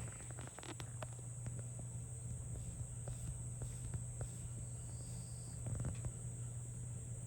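A steady high-pitched insect drone over a low steady hum, with scattered faint clicks.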